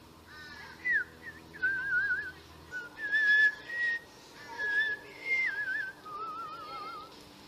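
Melodic whistling in short phrases: sliding notes, held notes and slow wavering trills, with brief gaps between phrases.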